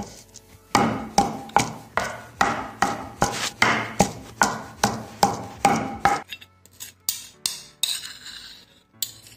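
Wooden pestle pounding wet herb chutney (coriander, mint, green chilli, garlic) in a stone mortar, a steady run of strokes about two to three a second. The pounding stops about six seconds in, giving way to lighter scraping around the mortar.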